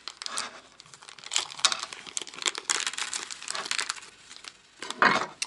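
Packets of small hardware, machine screws, lock nuts and flat washers, being handled. Irregular rustling and crinkling with scattered light clicks, and a louder rustle near the end.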